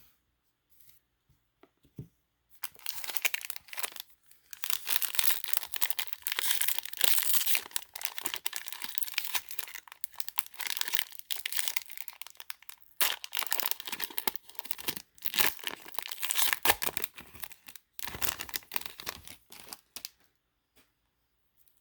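Magic: The Gathering Jumpstart booster pack wrapper being torn open and crinkled, in irregular crackling bursts that start a couple of seconds in and stop shortly before the end.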